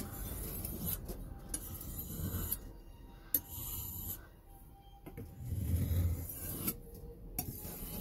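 Steel kitchen knife blade stroked back and forth across a sharpening stone, a run of grinding passes with a few light clicks between them, grinding the burr off the edge.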